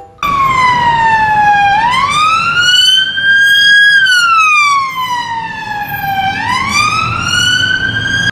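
Police car siren sounding a slow wail, its pitch falling and rising in long sweeps of about four to five seconds, over a low rumble of traffic.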